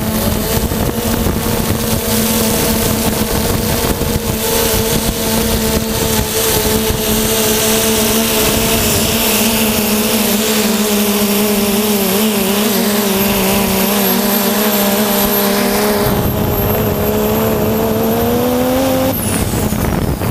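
Quadcopter drone's motors and propellers humming steadily close to the microphone over a constant rush of air. The hum wavers slightly, rises in pitch near the end and cuts off about nineteen seconds in.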